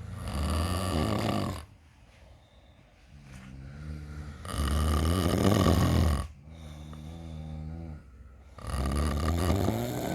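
A person snoring: three loud snores about four seconds apart, each followed by a quieter breath with a steady tone to it.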